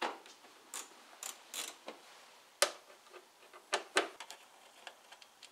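Irregular sharp clicks and clacks of hand tools and a plastic engine trim cover being handled while its Allen screws are undone, the loudest about halfway through.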